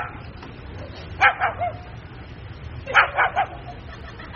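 White cockatoo giving short, yapping, dog-like barks: two about a second in, then a quick run of three about three seconds in.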